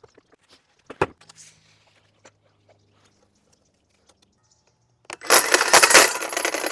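A sharp click about a second in, then a little past five seconds a power saw starts cutting wood with a loud, rapid rattling noise.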